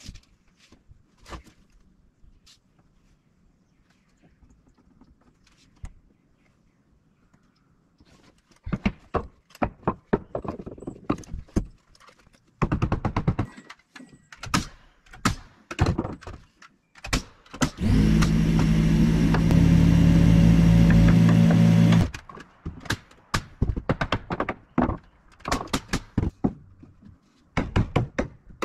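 Carpentry work: a run of sharp knocks and taps from wood and tools being handled. About two-thirds of the way through, a power tool runs loudly for about four seconds, then the knocking resumes.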